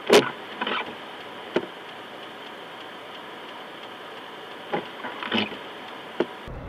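Freezing rain striking a car's windshield and roof, heard from inside the cabin: a steady hiss with about six sharp, irregular ticks, the loudest at the very start. Near the end the sound gives way to a low rumble.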